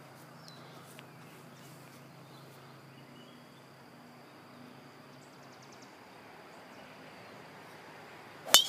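Steady high chirring of insects, then near the end a single sharp crack as a golf driver strikes the ball off the tee.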